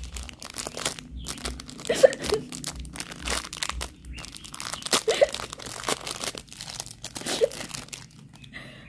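Plastic mailer packaging being crinkled and torn open by hand, in a run of irregular crackles and rustles.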